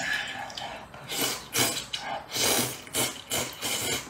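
Person slurping noodles from a spicy broth, a run of about six noisy sucking slurps from about a second in.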